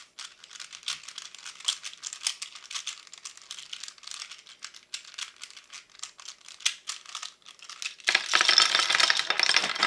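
Plastic Rubik's Cube being twisted fast, a dense run of clicks and clacks. About eight seconds in it becomes a louder, busier rattle as the cube is forced and breaks apart.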